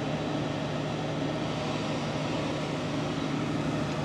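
Steady drone of airport machinery running, an even low hum that does not change.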